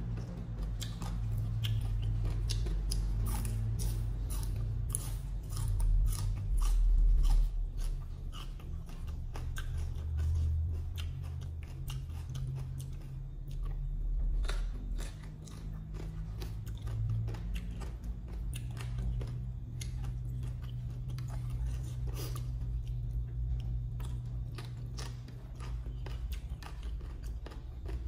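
Close-up chewing of Thai green papaya salad eaten by hand: many short, wet, crisp crunches and mouth clicks, loudest a few seconds in.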